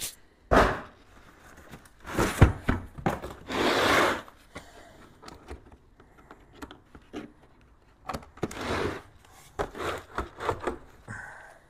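Packaging being handled: cardboard and plastic scraping and rustling as a tool case is slid out of its box and set down. Then the knocks and clicks of a hard plastic carrying case's latches being unsnapped and the lid opened, with plastic wrap rustling.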